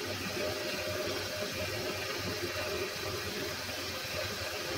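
Boxford metal lathe running steadily with its chuck spinning, giving an even machine hum with a constant higher whine.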